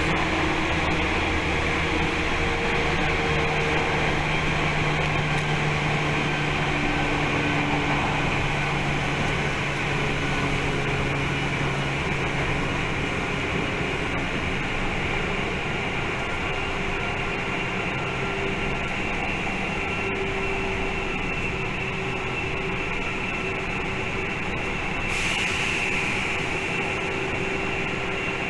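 Tokyu 8500 series electric train running at speed between stations, heard from inside the car: a steady running rumble with a faint high whine and a few low steady tones. A brief rise in hiss comes near the end.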